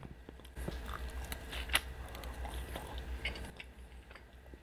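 A person chewing a mouthful of carne asada fries close to the microphone: wet smacking and a dense run of small mouth clicks, quieter for the last second.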